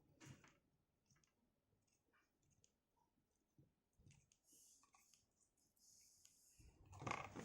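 Near silence with a few faint clicks from wires and parts being handled. Louder rustling handling noise comes in near the end.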